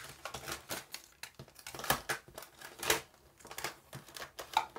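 Plastic minidisc cases clicking and clattering against one another as they are handled and pulled out of a packed plastic storage box. A run of irregular sharp clicks, the loudest about two and three seconds in.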